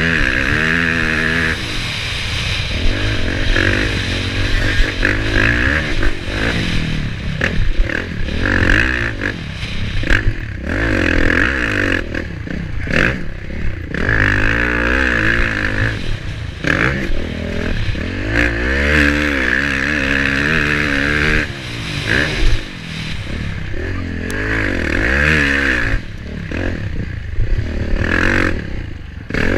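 Dirt bike engine at race pace from a helmet-mounted camera, its revs rising and falling over and over through gear changes, with short throttle cuts for corners and jumps.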